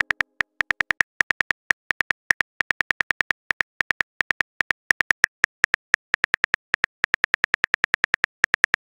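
On-screen phone keyboard clicks as a message is typed: a quick series of short, sharp ticks, about five a second, in uneven runs with brief pauses.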